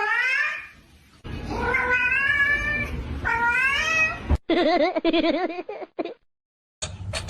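Cat meowing: three long, drawn-out meows. After an abrupt cut comes a different wavering, warbling cry lasting about a second and a half.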